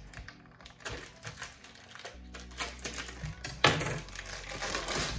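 Handling at a cutting board: a run of light clicks and knocks, with one sharp knock about three and a half seconds in followed by a second or so of rustling.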